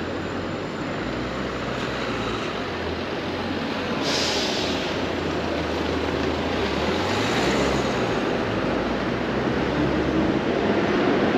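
Street traffic: cars driving past close by, with engine hum and tyre noise that swells as each one passes. A short hiss about four seconds in.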